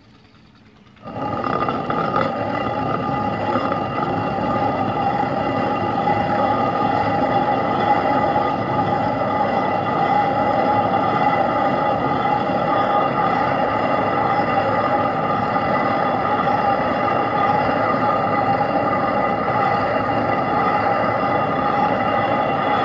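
Hand-turned stone quern grinding wheat into coarse broken wheat: a steady, continuous grinding rumble that starts abruptly about a second in.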